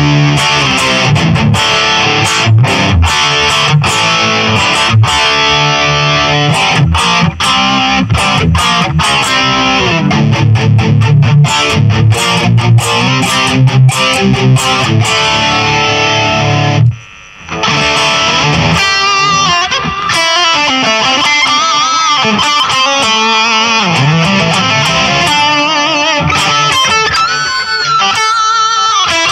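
Electric guitar played through a Mooer GE200 amp-modelling multi-effects processor, first as fast distorted, chugging rhythm playing. After a brief break about two-thirds in, it moves to single-note lead lines with bends and vibrato.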